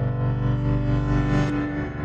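Background music of sustained chords, changing chord about a second and a half in.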